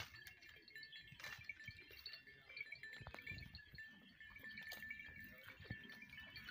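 Faint tinkling of small bells on a grazing goat herd, steady ringing notes that come and go, with scattered soft clicks from the goats feeding.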